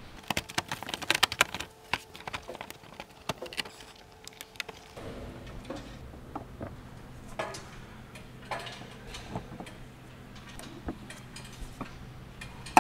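Clicks, taps and rattles of a plastic fender liner and its fasteners being handled and fitted back into the wheel well. A quick run of clicks comes in the first second or so, then single clicks and taps at irregular intervals.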